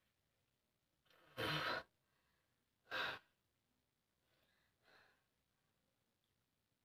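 A person's breath pushed out hard in two loud breathy bursts about a second and a half apart, then two faint ones.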